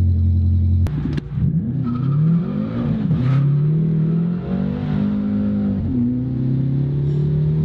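BMW M6 engine on a test drive, just back on the road after restoration: its note rises and falls several times as the car accelerates and eases off, then settles into a steady run about six seconds in.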